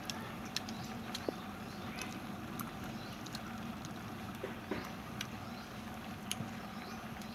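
People eating braised pork leg: scattered small clicks and mouth smacks from biting and chewing, over a steady low background hum.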